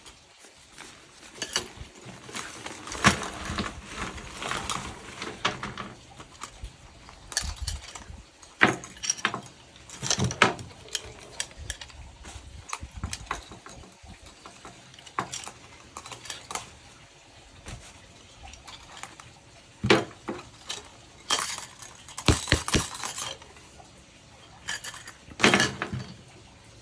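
A Whip Bat swing trainer being handled as it comes out of its nylon drawstring bag: rustling fabric and the clinking and jangling of its metal rings and clips, in irregular bursts with a few sharper clinks.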